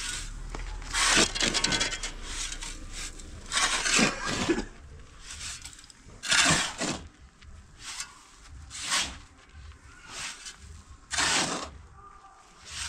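Repeated rough scraping strokes, each under a second long, coming about every two seconds.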